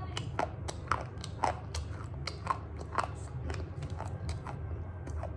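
Slate pencil being bitten and chewed, with sharp, crisp crunches about twice a second.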